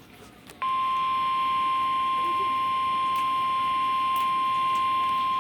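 NOAA Weather Radio 1050 Hz warning alarm tone: faint radio hiss, then a single steady, unbroken tone that switches on abruptly about half a second in. It is the attention signal that opens a tornado warning broadcast.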